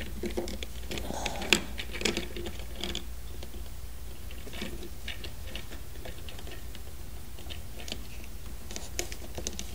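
Hard plastic parts of an Octonauts Octo Buggy toy being handled and snapped into place: scattered light clicks and taps, busiest in the first few seconds and again near the end.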